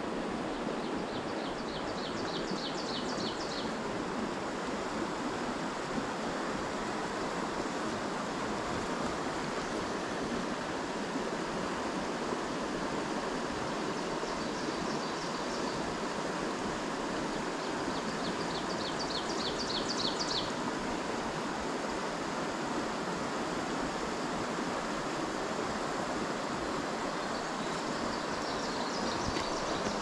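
Steady rush of a small stream flowing over rocks and riffles. A high, rapid trill cuts in briefly about four times.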